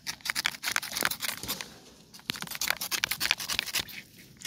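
A small knife cutting and scraping the fibrous flesh of a peeled ripe palmyra palm fruit: quick rasping strokes in two runs, with a short pause about two seconds in.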